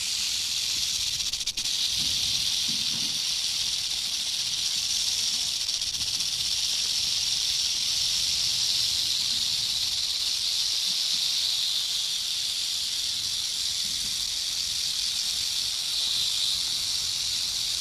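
Rattlesnake shaking its tail rattle: a continuous dry, hissing buzz, broken only by a very short dip about a second and a half in.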